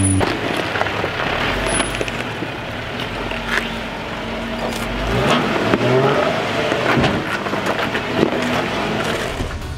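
Lifted Jeep Wrangler crawling slowly over rock ledges: the engine runs at low speed while the tyres grind and crunch on the rock, with a few sharp knocks, the loudest near the end.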